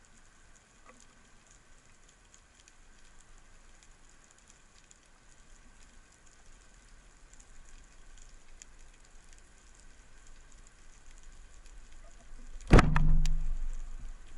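Speargun shot underwater: a faint crackling water background, then about twelve and a half seconds in one sharp loud crack, a second click about half a second later, and a short low hum that fades over about a second.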